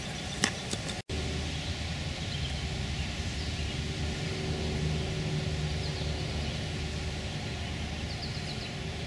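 Outdoor background with a steady low hum, with faint high chirps now and then near the middle and the end. Two short clicks come in the first second.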